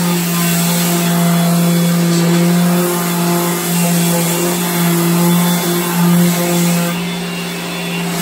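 Electric orbital sander with vacuum dust extraction running steadily as its pad works over a dark lacquered cabinet door, sanding the old finish toward bare wood. It gives a steady hum over a broad hiss, wavering slightly as the pressure on the pad changes.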